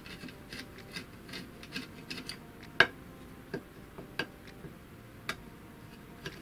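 Irregular sharp metallic clicks and ticks of a long hex key turning a screw in the cast metal terminal box of a bench grinder, with one louder click about three seconds in.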